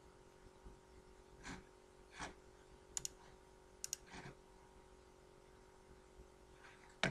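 Computer mouse clicking: two quick press-and-release pairs about 3 and 4 seconds in, and another click near the end. Soft breaths come between the clicks, over a faint steady hum.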